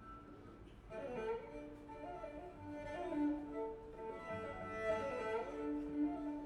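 Bowed-string music played back through Marten hi-fi loudspeakers and picked up in the room. After a quiet first second a wavering violin-like melody comes in over held lower string notes.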